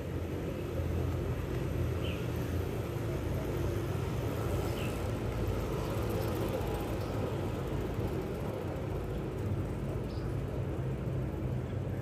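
Steady low rumble of distant road traffic, with a few faint short chirps now and then.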